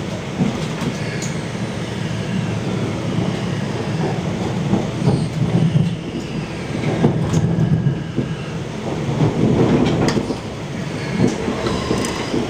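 A TER regional train running along the track, heard from inside the passenger car: a steady rolling rumble, with a few sharp clicks along the way.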